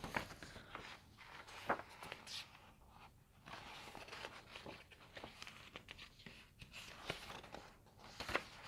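Faint scattered clicks and light rustling of handling noise in a small room, with no one speaking.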